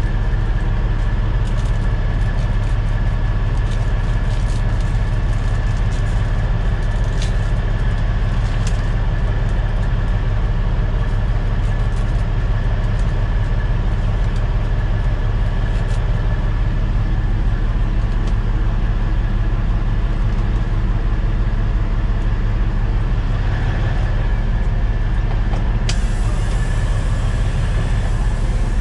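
Kenworth T800's Caterpillar C15 diesel idling steadily, heard from inside the cab, with a few light crackles of plastic packaging being handled.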